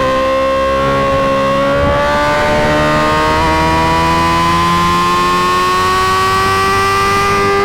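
Suzuki GSX-R1000's inline-four engine, breathing through an M4 GP slip-on exhaust, held at high revs under load, its pitch climbing slowly and steadily.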